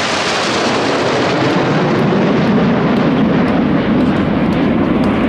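BAE Hawk T1 jets of the Red Arrows flying past with a loud, steady jet roar. Its high hiss fades after about two seconds, leaving a deeper rumble as the jets move away.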